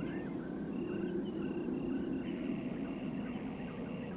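Rural outdoor ambience: a regular series of short high chirps, about three a second, with lower curving chirps among them, over a low steady rumble.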